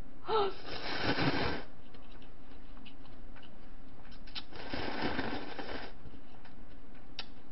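Noodles slurped noisily off chopsticks for about a second. A few seconds later comes a second, longer slurp of broth drunk straight from a paper cup.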